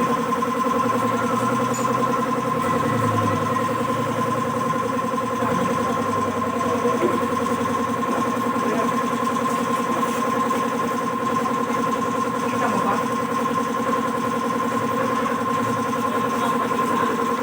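Kawasaki Fury 125 motorcycle engine idling steadily at an even, unchanging pitch.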